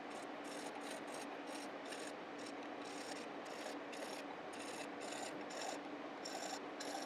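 Hand file scraping across the end of a brass rod in quick, even back-and-forth strokes, about three a second.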